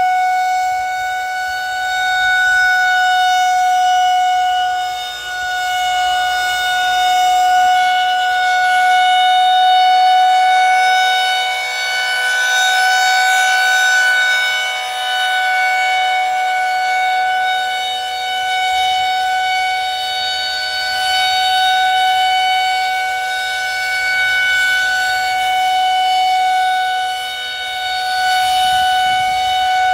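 Federal Signal 2001 rotating civil defense siren sounding a steady single-tone wail at full pitch. The sound swells and fades every several seconds as the rotating head sweeps past.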